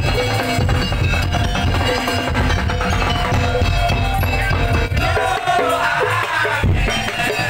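Loud parade music with heavy, steady drumming. A wavering melody comes in over the drums about five seconds in.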